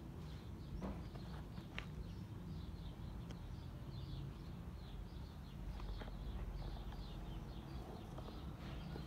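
Small birds chirping over and over in the background over a low outdoor rumble, with a few sharp taps scattered through.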